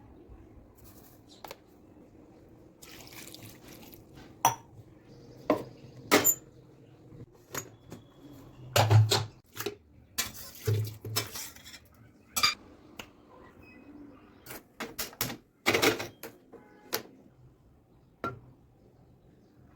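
Metal kitchen utensils clinking and knocking against pots and dishes, in irregular sharp knocks, some with a brief metallic ring. The knocks bunch into louder clusters about nine seconds in and again near sixteen seconds.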